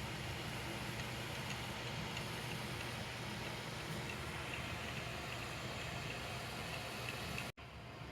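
3D printer running: a steady fan and motor hum with faint, quick high chirps from the stepper motors as the print head moves. The sound cuts out for an instant near the end.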